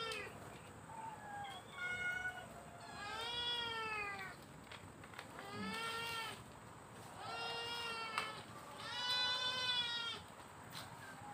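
Stray cats meowing at feeding time, begging for food. About five long, drawn-out meows come roughly every two seconds, with fainter short mews between them.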